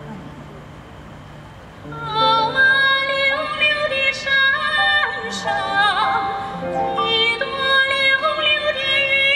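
An orchestra holds soft sustained notes, then about two seconds in a female soprano voice enters, singing in an operatic style with strong vibrato over the orchestral accompaniment.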